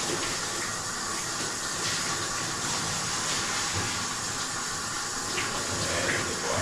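Steady rushing hiss of a dog-wash station's spray nozzle running water onto a dog being bathed.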